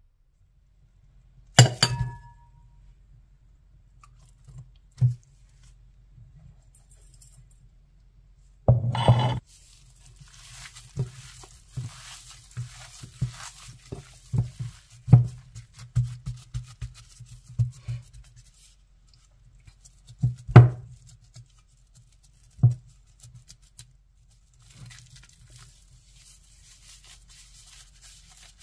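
A glass mixing bowl being handled: sharp clinks and knocks, the first with a short glassy ring. In between, gloved hands knead minced meat in the bowl, making a long run of soft irregular taps, rubbing and squishing. More knocks come about two-thirds of the way through.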